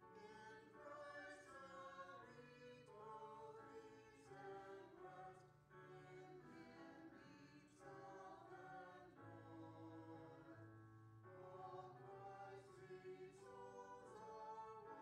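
A small group of voices singing a hymn together in parts, heard faintly, with steady low notes held underneath.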